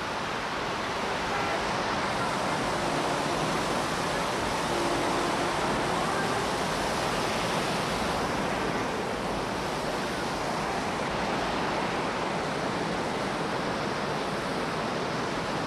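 Plaza fountain's falling water, a steady, even rush of splashing.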